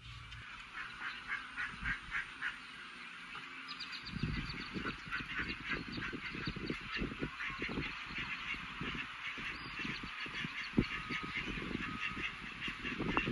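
Birds calling, many short calls in quick succession. A low, gusty rumble joins about four seconds in.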